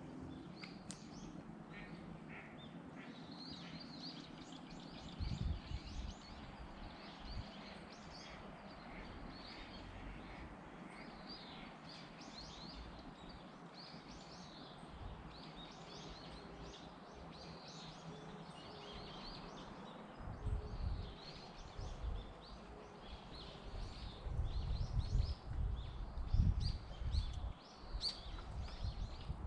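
Small birds chirping and calling over an outdoor background, with low rumbling bumps on the microphone at about five seconds and again, heavier, through the last ten seconds.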